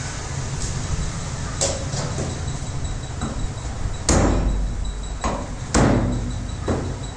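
Chopping blade striking through chicken onto a wooden stump block: about five sharp chops with a few lighter knocks between them, the two loudest about four seconds in and just before six seconds, over a steady low hum.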